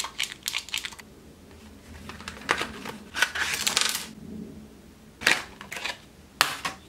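Clear plastic blister packaging of a model-railway track piece being handled and pulled open: a run of light clicks, a crinkling rustle in the middle, then two sharp plastic snaps near the end.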